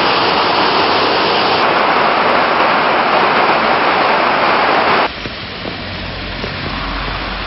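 Floodwater rushing loudly and steadily through a dam's opened spillway gates. About five seconds in it cuts abruptly to a quieter rush of runoff cascading down a rocky hillside.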